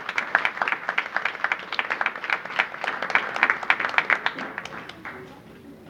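Audience applauding, with individual hand claps close by standing out from the rest. The clapping dies away about five seconds in.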